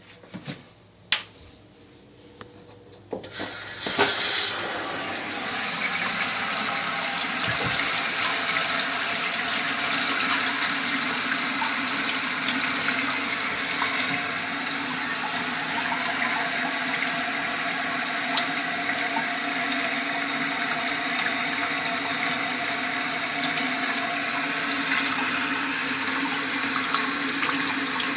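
A few clicks, then a toilet flushes with a loud rush of water about three and a half seconds in. The rush settles into a steady hiss of water as the tank refills through its newly installed Korky fill valve.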